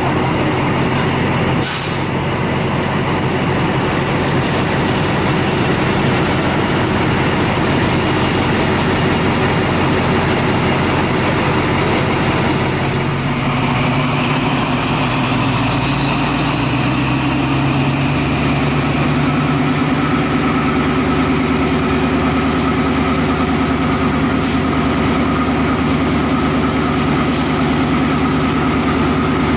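KTMB Class 24 diesel locomotive's engine running steadily, first at idle; about halfway through it picks up and a whine climbs in pitch over a few seconds, then holds steady as the engine runs at a higher speed.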